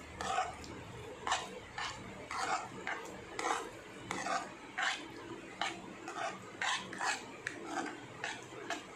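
Metal spoon stirring a thick mix of jaggery syrup and makhana-milk in a stainless steel bowl, scraping against the bowl in short strokes about twice a second.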